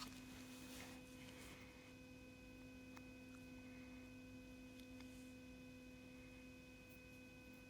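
Near silence with a faint steady hum of several held tones and a couple of soft clicks.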